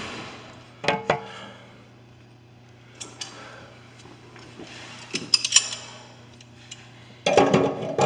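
Metal clinks and knocks of hand tools on a drinking fountain's drain fittings. Two knocks about a second in, a quick run of sharp ringing clinks past the middle, and a louder clattering handling noise near the end, over a low steady hum.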